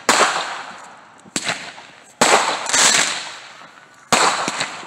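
Aerial fireworks bursting overhead: four sudden bangs, the second weaker, each followed by crackling that fades away over about a second.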